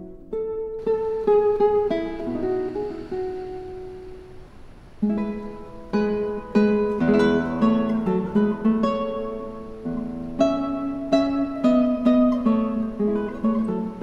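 Background music: solo acoustic guitar playing plucked melodic notes. It is sparser for a couple of seconds, then busier from about five seconds in.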